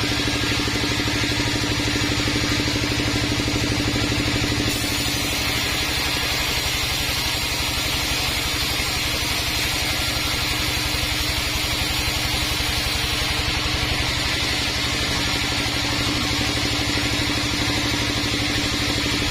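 Large band sawmill running steadily with an engine-like hum. From about five to thirteen seconds in, a faint high hiss joins it.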